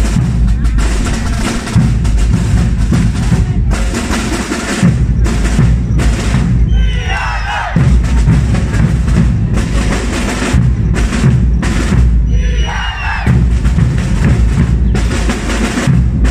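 A Portuguese bombos drum band: large bass drums (bombos) and snare drums beaten together in a fast, driving rhythm, with two short breaks in the drumming about seven and twelve seconds in.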